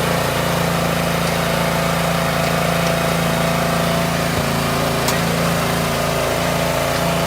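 Engine of a Victory GSF-2500 self-propelled stump grinder running steadily at an even speed.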